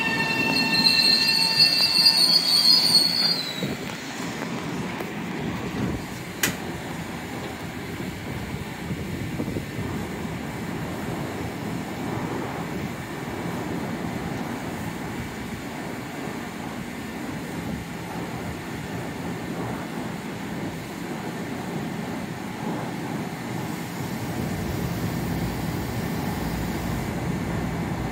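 Long Island Rail Road M7 electric train braking to a stop at the platform: its motor whine falls in pitch and a high brake squeal sounds for the first three seconds or so. A single sharp click follows about six seconds in, then the standing train's steady hum, with a low rumble building in the last few seconds.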